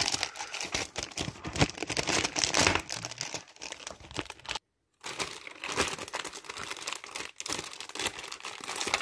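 Clear plastic bag crinkling and rustling as it is pulled off a new computer keyboard, with a half-second break in the sound about halfway through.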